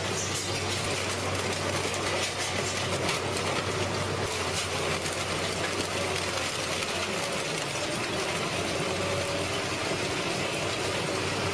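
Heavy industrial shredding machine running under load: a steady engine drone with a constant dense crackle of material being broken up.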